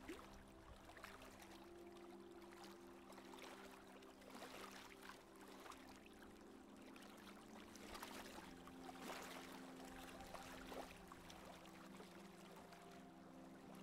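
Faint hiss of water rushing along a sailboat's hull, swelling now and then, under quiet background music of sustained soft chords that change once about two-thirds of the way through.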